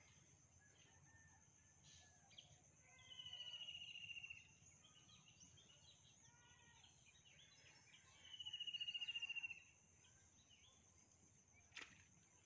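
Rural outdoor wildlife sounds: a steady high insect drone with scattered short bird calls. Two louder rapid trills, each about a second long and falling slightly in pitch, come about five seconds apart, and there is a single sharp click near the end.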